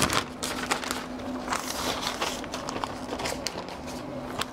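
Butcher paper crinkling and rustling in irregular short crackles as it is folded and wrapped around a brisket.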